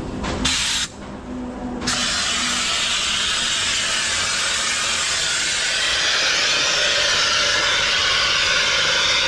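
A high-pressure wash nozzle sprays a fine mist of cleaning chemical onto the underside of a truck's chassis, hissing. There is a short spurt about half a second in, then a steady, loud hiss from about two seconds in.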